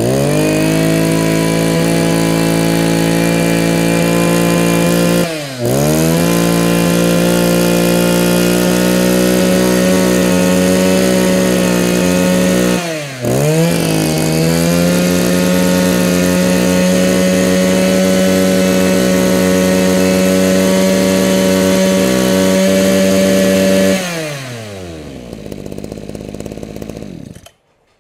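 Mitsubishi TL26 26cc two-stroke brush cutter engine revved up and held at high throttle. The throttle is let off briefly and opened again twice. Near the end it is released and the engine note falls back to idle.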